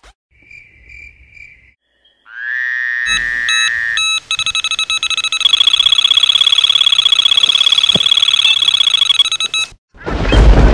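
Electronic sound effects: three short high beeps, then a tone that swells and steadies, then a long, rapidly pulsing buzzy trill that cuts off suddenly. A burst of rushing noise follows near the end.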